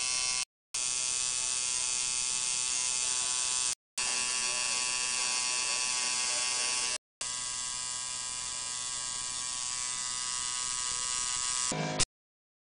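Electric tattoo machine buzzing steadily as its needle works ink into the skin of a forearm. The buzz is broken by three brief silences and cuts off with a click about a second before the end.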